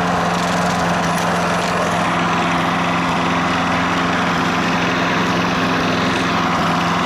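Small gas engine of a Craftsman self-propelled lawn mower running steadily at an even speed, with the self-propel drive engaged so the mower rolls itself along on its front drive wheels.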